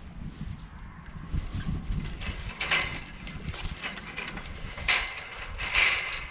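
Grapevine canes being handled and rustled during winter pruning, with three louder scraping, snapping bursts, one a little before halfway and two near the end, over a low rumble.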